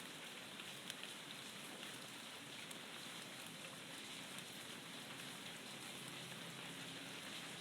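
Steady rain falling: an even hiss of many drops, with a few sharper single drop strikes standing out, one of them about a second in.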